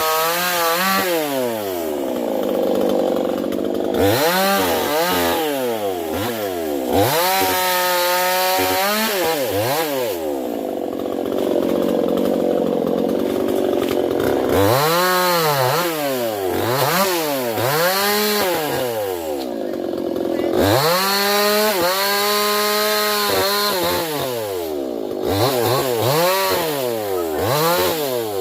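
Two-stroke chainsaw engine revved up and down again and again, each rev rising and falling in pitch. Twice it is held at high revs for a couple of seconds, near a third of the way in and again toward the end.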